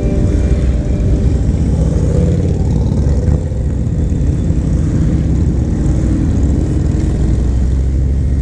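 Harley-Davidson V-twin motorcycle engine running steadily under way, a dense low pulsing sound, as background music fades out in the first second.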